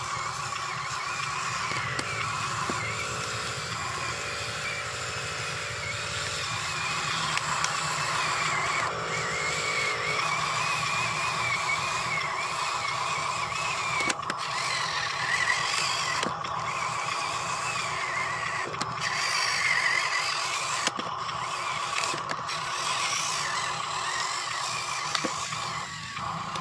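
Huina RC dump truck's electric drive motor and gearbox whining as it drives loaded with soil, the pitch wavering up and down as the throttle changes, with a few sharp ticks.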